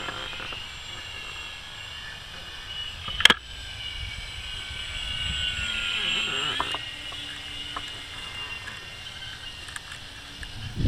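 Distant RC plane's motor whining in flight, a high steady tone that wavers and dips in pitch about six seconds in as the throttle changes. A single sharp click sounds about three seconds in.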